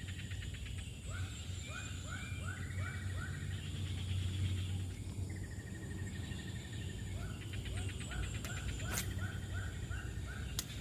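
Animal calls: a run of short rising notes, about three a second, with rapid buzzing trills between them over a low steady hum, and two sharp clicks near the end.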